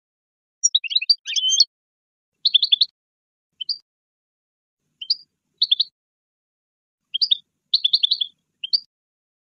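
A finch singing goldfinch-style song: about nine short, high-pitched twittering and trilling phrases, each under a second long, broken by dead-silent gaps.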